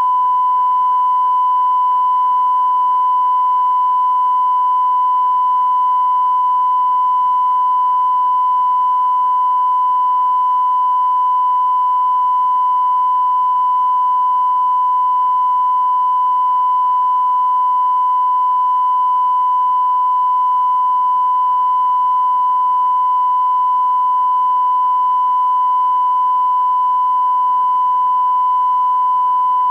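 A steady 1 kHz test tone, one unbroken pitch that switches on abruptly, over a faint low hum.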